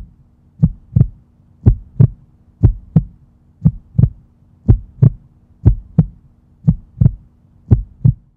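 Heartbeat sound effect: paired low thumps, lub-dub, about one pair a second, over a faint steady hum.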